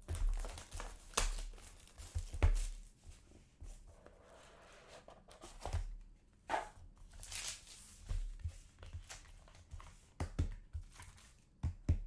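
Trading card packaging being torn open and handled: crinkling and tearing of wrapper with scattered light taps and clicks of cards being handled.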